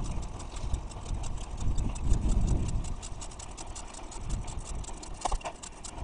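A ride on a bicycle carrying a camera: wind buffets the microphone as a low, uneven rumble, with a quick run of small clicks and rattles from the bike rolling over the lane.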